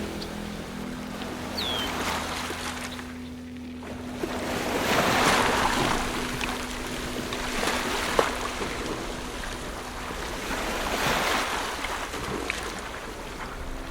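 Ocean surf: waves breaking and washing in, swelling in loudness about every three seconds.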